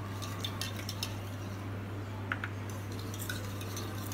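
Faint light clicks and taps of a plastic bowl and spoon against a steel mixer-grinder jar as dried ginger powder is tipped in, over a steady low hum.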